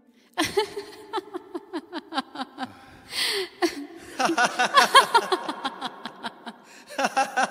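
Laughter in quick rhythmic bursts of short 'ha-ha' pulses, starting after a brief silence. There is a breathy gasp about three seconds in, and a denser, higher run of laughter follows.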